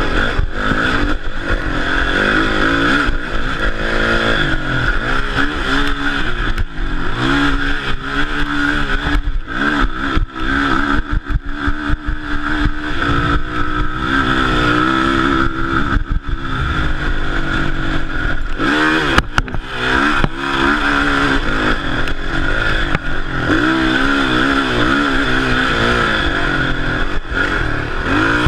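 Yamaha WR450F dirt bike's single-cylinder four-stroke engine revving up and falling back over and over as it is ridden hard through the gears on a rough dirt trail, heard close from a handlebar-mounted camera. A few sharp knocks from the bumps come about two-thirds of the way in.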